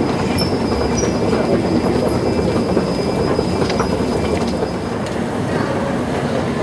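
Steady metallic rumble and rattle of the Vienna U-Bahn underground, with a few clicks. A thin, high squeal holds from just after the start until about five seconds in.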